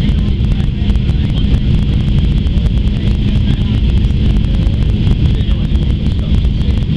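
Steady cabin noise of a Boeing 737-800 on final approach, heard from a window seat over the wing: the low rumble of its CFM56 engines and the airflow, with a steady hiss above it.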